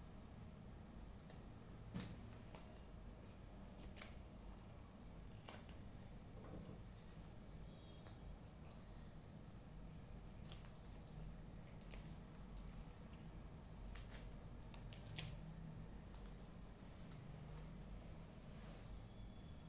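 Small scissors snipping through a taped paper sticker: faint, separate snips every second or two.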